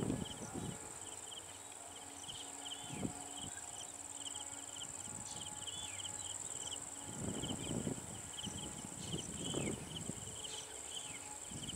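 Insects calling: a steady high-pitched buzz with a rapid, regular pulsed chirping over it. A few louder, irregular lower sounds come and go over the chorus.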